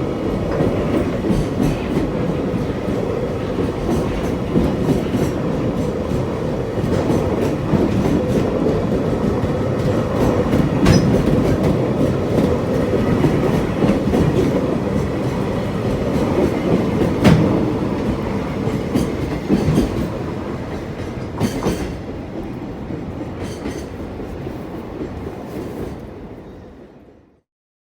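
Freight train rolling past, its wagons' wheels clattering steadily over the rail joints with occasional sharper clanks, fading out near the end.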